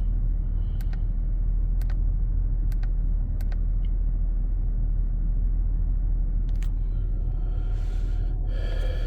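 2005 Acura TL's 3.2-litre V6 running with a steady low rumble and a few sharp ticks, under a pretty substantial misfire that the scan tool is not detecting.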